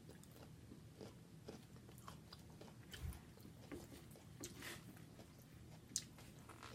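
Faint chewing close to the microphone: soft crunches and wet mouth clicks, with a low thump about three seconds in and a sharp click near six seconds.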